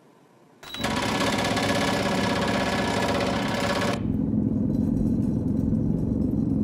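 A motorised vibration exercise platform switches on about half a second in and runs with a loud, steady mechanical buzz and rattle. A few seconds in, the sound turns muffled and bass-heavy: the same machine heard through the floor from the flat below.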